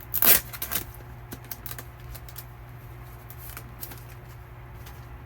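A short rustle of a photocard being handled, loudest in the first second, followed by light scattered clicks and taps.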